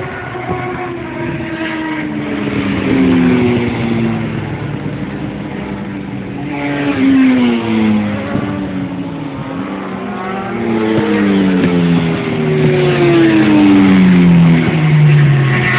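Sport motorcycles ridden hard on a race circuit, passing one after another, engine note falling in pitch as each goes by. Three main passes, the loudest near the end.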